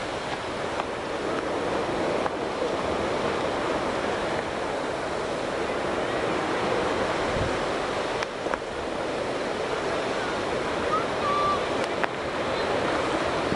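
Surf breaking on a sandy beach, a steady, even wash of waves with some wind.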